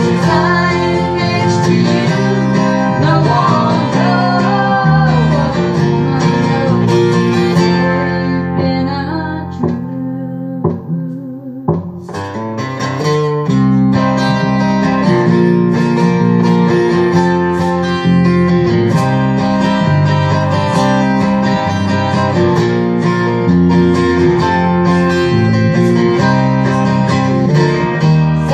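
A band playing music led by guitar, in a country style. About ten seconds in it thins out to a brief sparse break, then the full band comes back in.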